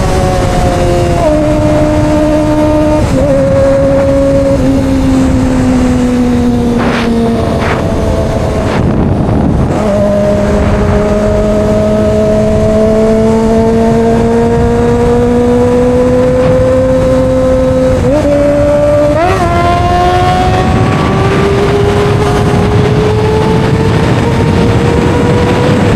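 Kawasaki ZX-25R's 250 cc inline-four, on an Austin Racing slip-on exhaust, running on the road: its pitch steps down twice in the first few seconds and falls away, then rises slowly under throttle, jumps up twice about two-thirds through and climbs again, over a steady rush of wind.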